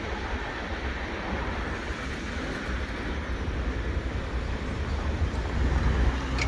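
Steady rumble and hiss of a freight train moving away from a grade crossing. Near the end a car drives up and crosses, and the sound grows a little louder.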